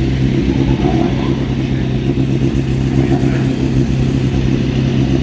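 Classic Mini's four-cylinder A-series engine running at steady, raised revs, held there with the car waiting to launch from the hill-climb start line.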